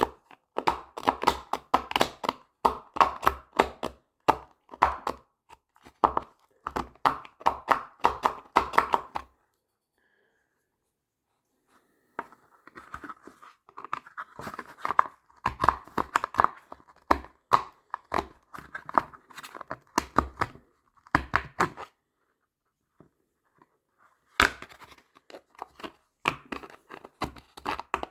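Knife blade cutting and scraping into a tough plastic case in quick, repeated strokes. The strokes come in three runs separated by pauses of a couple of seconds.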